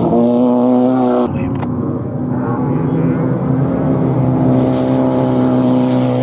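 Desert off-road race vehicle engine running at high revs, its note held fairly steady, with an abrupt change in the sound a little over a second in.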